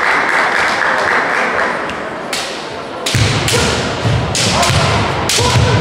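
Kendo exchange: bamboo shinai clacking sharply together and onto armour several times, starting about two seconds in, with heavy thuds of stamping feet on the wooden gym floor.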